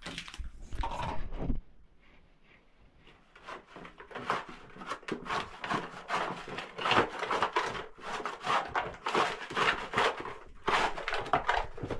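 Rapid, repeated scraping strokes that start about four seconds in, after a brief quiet spell.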